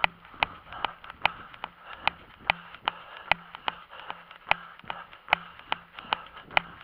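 A runner's footsteps on an asphalt road, a steady stride of about two and a half sharp steps a second, every other step a little louder.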